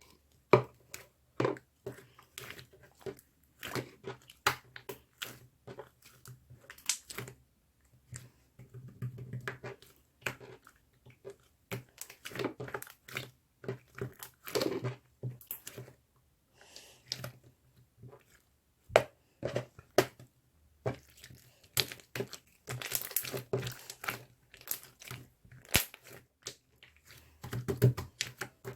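Irregular crinkling and crackling sounds with many sharp clicks, made close to the microphone.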